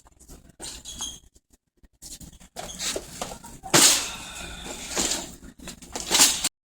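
Rustling and bumping handling noise in irregular bursts as a person gets into a car, the loudest about a third of the way in and near the end, stopping abruptly.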